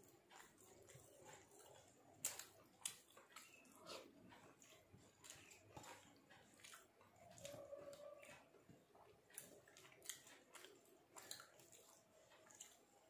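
Faint close-up eating sounds: soft chewing with sharp mouth clicks and smacks scattered through, one every second or so.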